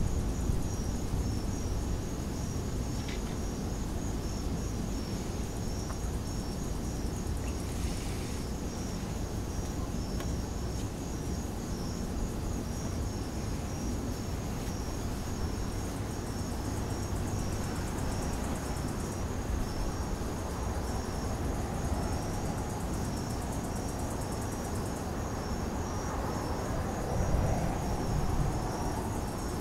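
Crickets chirping in a steady run of evenly spaced high-pitched pulses, with a faster, finer insect trill above them. Low wind rumble on the microphone sits underneath.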